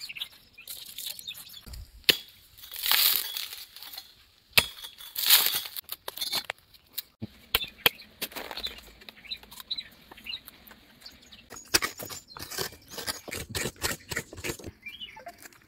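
Hands at work on food: rustling and scraping, with two loud swishes around three and five seconds in, then a quick series of sharp clicks and scrapes as a coconut is broken and its flesh worked with a knife.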